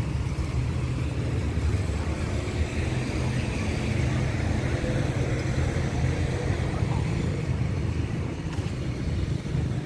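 Steady low engine drone, with outdoor noise above it.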